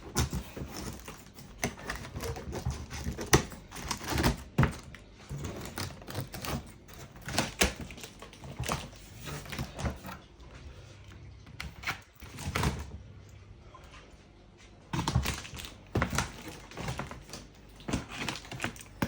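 A parcel being opened with scissors: an irregular run of clicks, snips, knocks and rustles of packaging being cut and handled, with a quieter stretch a little past halfway.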